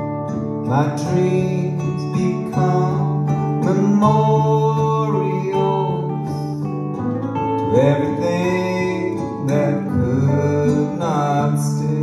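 Live folk song: acoustic and electric guitars playing with a bowed cello holding long low notes that change every second or few, and a man singing over them.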